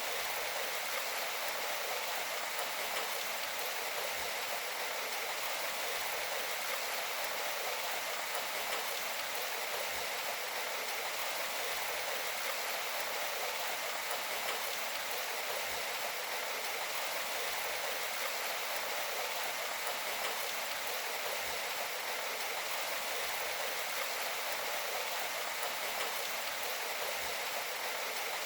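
Steady rain, an even hiss of falling water with no low rumble and no single drops standing out.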